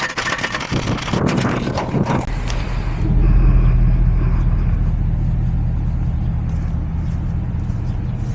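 Scraping and handling noises, then an engine running steadily at idle from about two seconds in, growing louder about a second later.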